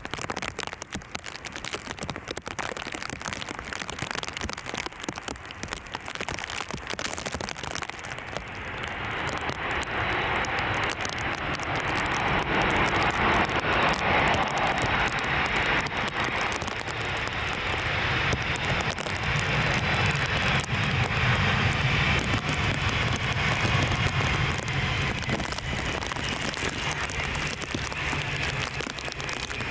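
A jet airliner's engines grow louder from about a third of the way in, hold a loud, steady noise with a low drone through the middle, then ease slightly. Rain patters underneath at the start.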